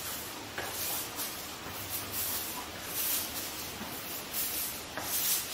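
Long-handled paint roller rolling wet topcoat over an epoxy flake garage floor: a sticky hiss that swells with each back-and-forth stroke, about once a second.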